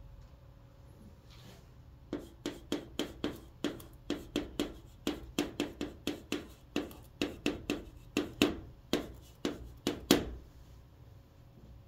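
A stick of chalk writing on a chalkboard: a quick run of short taps and scrapes, stroke after stroke. It starts about two seconds in and stops just after ten seconds.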